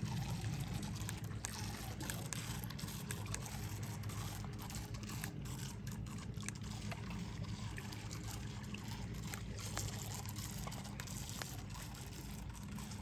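Lake water lapping and trickling among shoreline rocks, with a steady low rumble underneath and scattered faint ticks.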